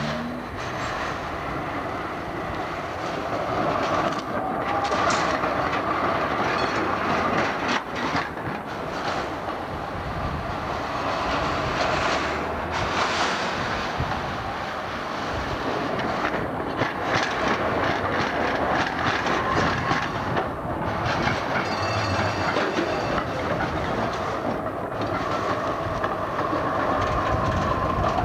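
Older GVB Amsterdam articulated trams running past on street track, their steel wheels clattering over rail joints and points.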